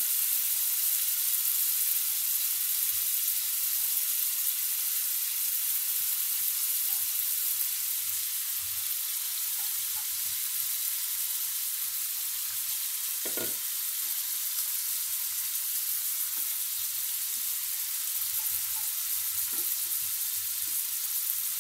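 Marinated chicken pieces sizzling steadily in hot oil in a frying pan, with one brief knock a little past halfway.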